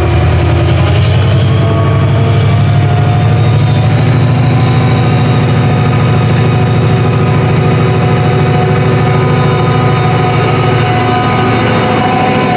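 Class 68 diesel-electric locomotive's Caterpillar V16 engine working under power as the train pulls out, a loud, steady low drone with a few higher tones over it. The low engine note eases off near the end as the coaches roll past.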